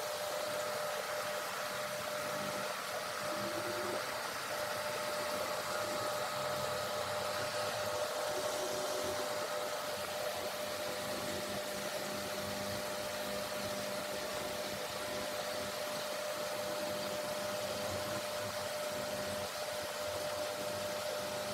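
Steady mechanical hum: an even hiss with a constant mid-pitched tone and a fainter low hum, unchanging throughout.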